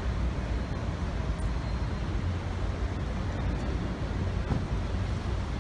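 Steady outdoor city ambience dominated by a low rumble of road traffic.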